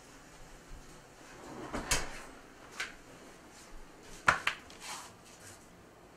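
A few separate knocks and clunks of kitchen handling, the loudest and sharpest a little past four seconds in, as the oven door is shut after the baking sheet comes out.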